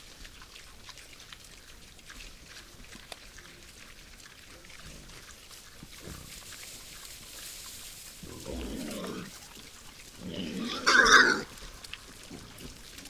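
Wild boars grunting, with faint crackling rustle in the background; two louder calls stand out, about eight and a half and eleven seconds in, the second the loudest and harshest.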